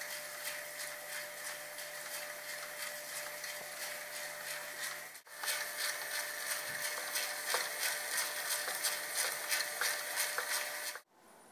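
DEC PC04 paper tape reader running, its stepper motor advancing the punched tape through the read head in a rapid, even stream of clicks over a steady hum. It drops out briefly about five seconds in and stops abruptly near the end.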